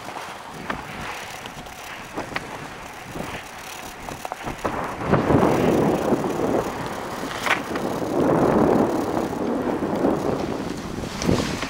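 Dog sled running along a snowy trail: a steady hiss of the runners over the snow with scattered knocks from the sled, swelling louder twice in the second half.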